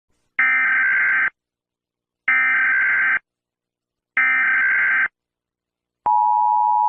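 Emergency Alert System SAME header: three harsh, buzzy data bursts just under a second each, about a second apart. Near the end the steady two-tone EAS attention signal starts.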